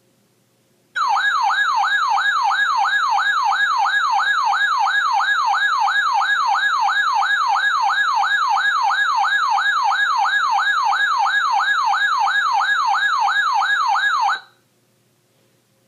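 Weather alert radio's siren alarm, set off by an incoming warning: a warbling tone sweeping up and down about two and a half times a second. It starts abruptly about a second in and cuts off after about thirteen seconds.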